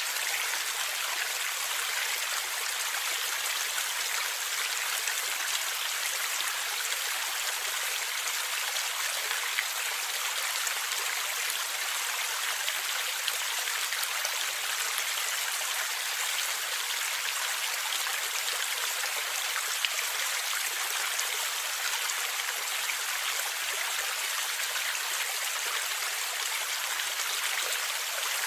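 Stream water flowing and gurgling over rocks, a steady rushing hiss with fine splashes and no change throughout.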